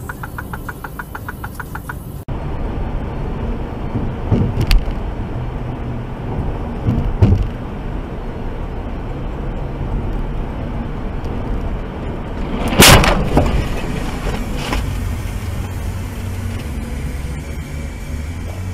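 Steady road and engine noise heard from inside a car driving at motorway speed, with a few short knocks about four and seven seconds in and one loud bang about thirteen seconds in, the loudest sound.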